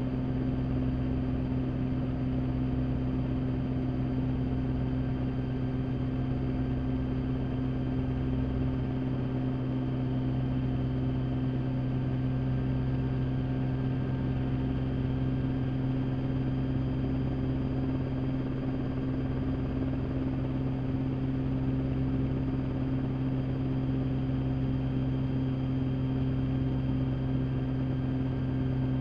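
Rotorway experimental kit helicopter in flight, heard from inside its cockpit: a steady low drone of engine and rotor. It holds even throughout, with one strong low hum and its overtones.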